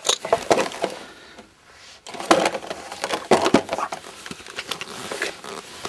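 Rustling and knocks of handling close to the microphone, as a hand reaches out and takes hold of something, with a short lull about a second and a half in.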